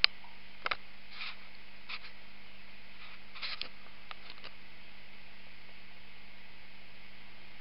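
A steady low hum with a faint hiss, and a handful of soft, irregular clicks in the first half.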